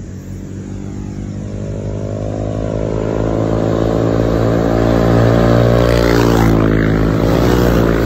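Motorcycle engines approaching around a bend: a steady engine note grows louder, then drops in pitch near the end as the lead bike nears.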